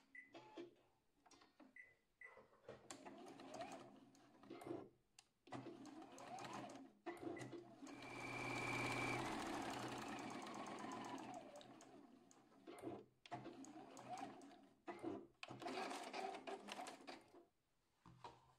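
Electric sewing machine stitching fabric in a series of short stop-start runs, with one longer run from about eight to twelve seconds in.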